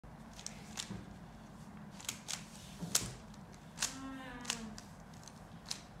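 Plastic 3x3 Rubik's cube layers being turned quickly by hand, giving irregular sharp clicks and clacks a few times a second during a speed-solve. A brief pitched sound, gliding slightly down, comes about four seconds in.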